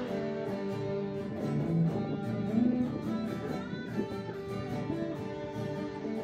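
Background music of plucked guitar playing a melody.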